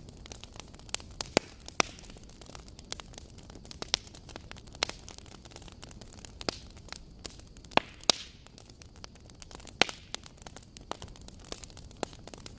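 Campfire burning: a low steady rumble of flames with irregular crackles and sharp pops of burning wood, a few louder snaps among them.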